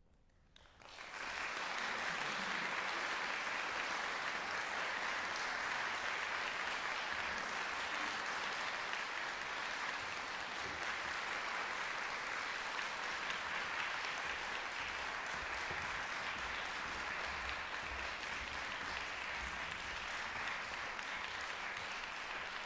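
Audience applauding, breaking out about a second in after a brief quiet and going on steadily.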